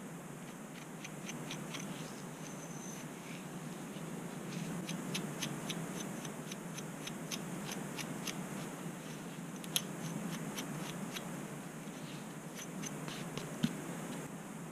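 Scratching and combing at the scalp through thick curly hair to lift dandruff flakes: runs of quick, light scratchy strokes, a few per second, with a couple of sharper clicks in between.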